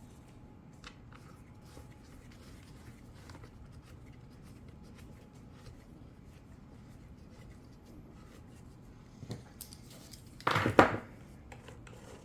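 Hands working on a cordless chainsaw's bar and side cover: faint clicks and handling noises, then a short, loud burst of knocking about ten and a half seconds in.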